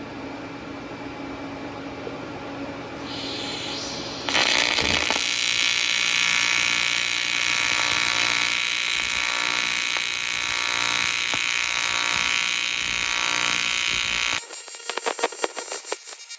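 TIG welding arc on cast aluminum buzzing steadily for about ten seconds, striking about four seconds in; an AC arc, as is usual on aluminum, while 4043 filler rod is fed into a cast-aluminum-to-6061 joint. Near the end the buzz turns choppy.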